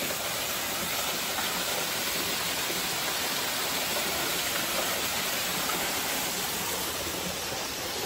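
Small waterfall spilling into a rock pool: a steady rushing, splashing hiss of falling water.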